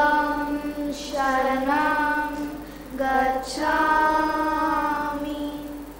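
Children's voices singing a slow, unaccompanied devotional chant in long held notes, in three drawn-out phrases, the last one fading near the end.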